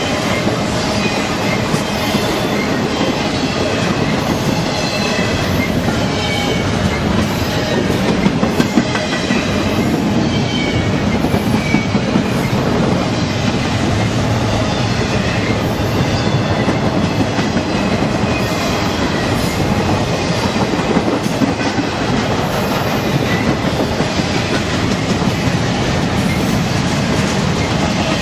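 Double-stack intermodal freight cars rolling past at speed: a steady loud rumble with the clickety-clack of wheels over the rails, and faint high squealing from the wheels coming and going.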